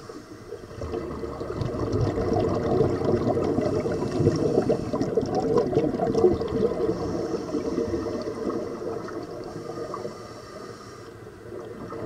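Scuba diver's exhaled air bubbling and gurgling underwater as he clears water from his refitted mask by breathing out. It builds about a second in and eases off near the end.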